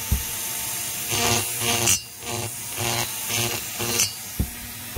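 Small hand-held rotary tool with a fine burr running and cutting the port edge of an Echo CS-670 chainsaw cylinder in short repeated strokes, about two a second. It is chamfering the port: breaking the sharp edge so that it will not scar the piston.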